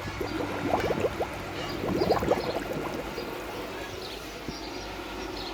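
Water gurgling and splashing in a run of quick pops, busiest around two seconds in, over a steady low hum, as pool water is sucked through a home-made pool vacuum.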